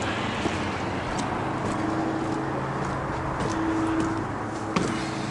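Steady rush of road traffic with a low engine hum running under it.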